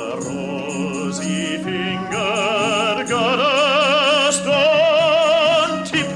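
A high voice singing long, held notes with wide vibrato over a sustained instrumental drone. It gets louder about two seconds in.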